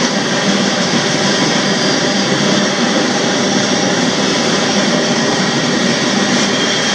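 Steady, loud roar of a moving freight train, heard riding on the end platform of a covered hopper car.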